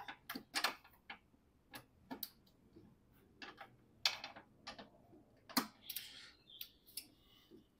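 Hand ratchet clicking in short irregular runs as 13 mm bolts are undone by hand, with a brief metallic scrape near the end.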